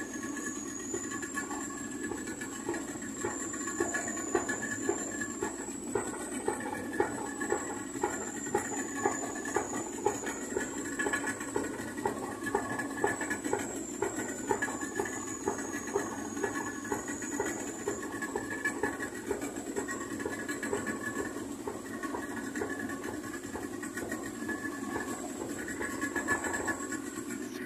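Marine diesel engine running steadily with a regular knocking beat, over a steady hiss.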